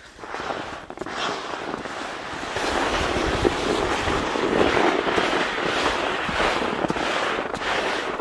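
A sled sliding down a slushy, well-used snow track: a continuous scraping hiss of snow and slush under it, with wind on the microphone. It grows louder about two and a half seconds in.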